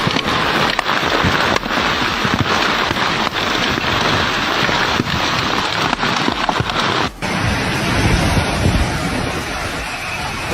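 Hailstorm: a dense clatter of hailstones and rain striking surfaces, with many separate hits through a steady roar. The sound changes abruptly about seven seconds in, and a deeper noise joins after that.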